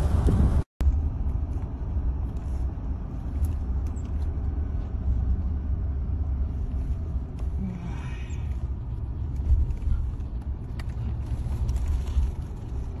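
Steady low rumble of road noise inside a moving car's cabin. The sound cuts out completely for a moment just under a second in.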